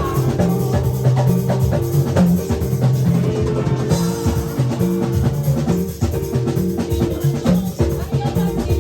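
Live church band music with a drum kit playing a steady beat over sustained bass and keyboard notes.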